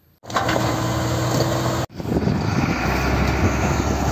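Dump truck's diesel engine running as its raised tipper bed unloads a load of stone, with the rocks clattering down onto the pile. The sound cuts out for an instant a little under two seconds in, then carries on.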